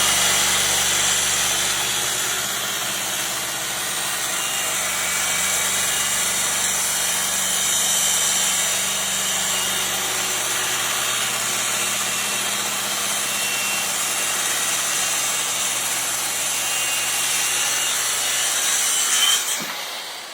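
A power saw runs steadily, cutting along the corner of a wooden speaker box, with a constant motor hum under the noise of the cut. The motor stops near the end and winds down.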